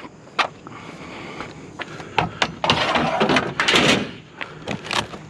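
A discarded glass-paned door being handled: a series of sharp knocks and clicks, with a scraping rattle about three seconds in.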